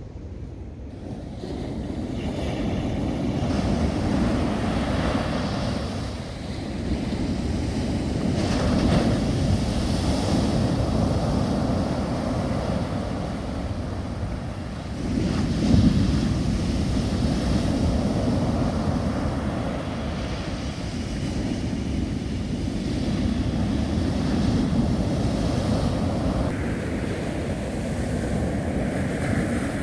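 Sea surf breaking on a beach in slow, repeated surges that swell and fade every several seconds, the loudest break about halfway through, with wind rumbling on the microphone.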